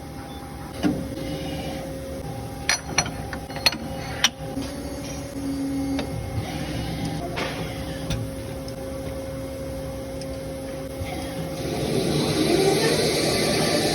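CNC milling machine running with a steady mechanical whine. There are a few sharp clicks in the first few seconds, and the sound grows louder with a broader rush of noise near the end.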